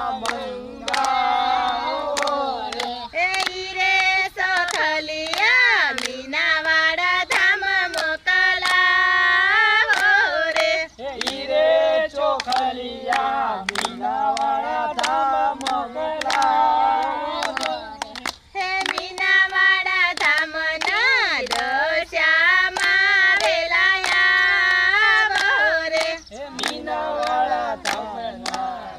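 Voices singing a devotional song (bhajan) to the goddess Dashama, with steady hand clapping keeping time about twice a second.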